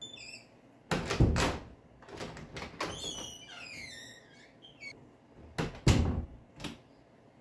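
Several heavy thuds, about a second in and again around six seconds, with high squeaks sliding downward in pitch between them.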